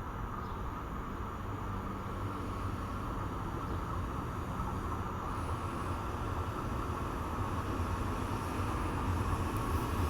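Steady low vehicle rumble, slowly growing louder.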